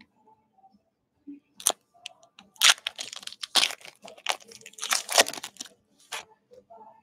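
Foil wrapper of a Panini football card pack being torn open by hand, crinkling, in a run of loud rips from about two and a half to nearly six seconds in, after a single short rip near the start.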